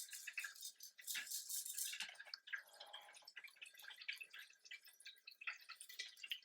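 Close-miked eating sounds: many small wet mouth clicks and smacks while chewing, with a denser, crunchier stretch about a second in.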